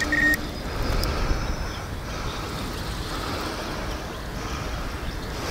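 Wind on the microphone: a steady low rumble with a light hiss, without change.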